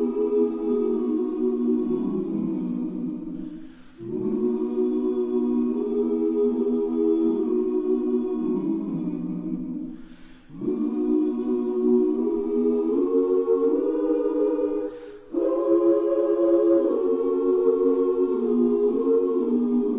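A choir singing slow, sustained a cappella chords in long held phrases, with a short break between phrases three times.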